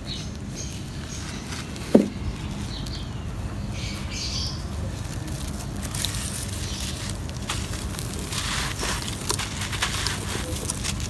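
A dry, crumbly clump of sand and dirt is handled and broken apart by hand. There is a single dull knock about two seconds in. From about six seconds on come dense crunching crackles and the trickle of grains falling through the fingers.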